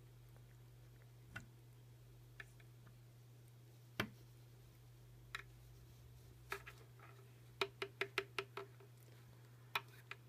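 Scattered sharp clicks and taps of a pencil as a Maine Coon cat bites and paws at it, the loudest about four seconds in and a quick run of about six taps later on, over a steady low hum.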